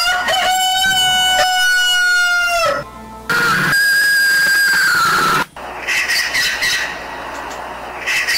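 Bird calls: a rooster's long held crow of about two and a half seconds, then a second, higher held call that drops in pitch at its end. In the last couple of seconds comes a rougher, scratchy bird chatter.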